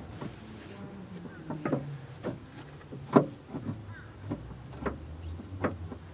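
Irregular light clicks and knocks of car door parts being handled and moved by hand, about eight in all, the loudest about three seconds in.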